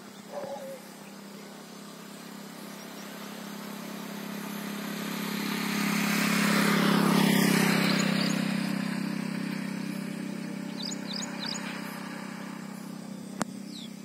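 A motor vehicle passing by, growing louder over several seconds to its loudest about halfway through and then fading away. A few short bird chirps come near the end.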